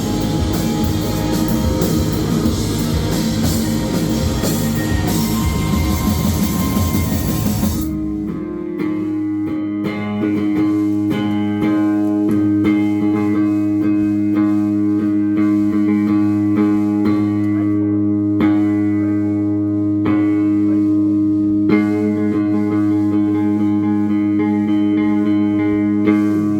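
A band playing rock music with drums, electric guitar and bass. About eight seconds in the drums and full band drop out, leaving plucked guitar over steady held low notes.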